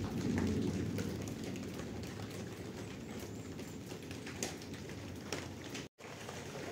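Steady rain falling on a hut's roof, with scattered drop ticks through the patter. The sound breaks off for an instant near the end.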